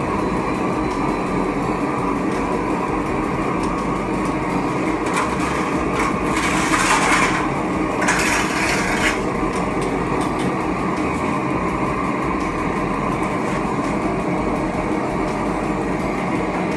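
A homemade metal-melting furnace running with a steady, loud rushing noise. There are two short bursts of sharper hiss a little past the middle.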